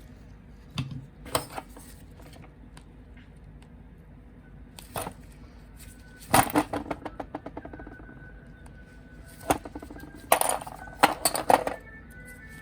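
Snap-fit plastic model kit parts being pulled apart and handled: scattered sharp clicks and small rattling clatters, with the loudest bursts about halfway through and near the end. Faint background music plays underneath.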